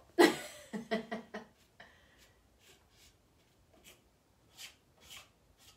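Hand-held plastic paint scraper drawn over wet chalk paint on a mahogany drawer front, making a string of short, scratchy scrapes, lifting the wet paint to give texture. A brief burst of voice comes at the very start.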